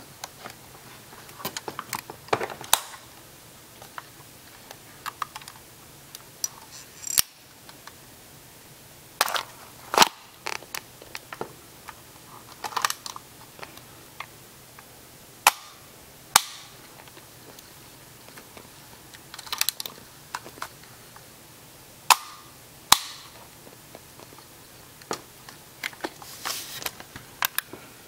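Polaroid Land Camera Model 250 being handled: irregular sharp clicks and clacks from its back and mechanism being opened and worked, with a few louder single snaps.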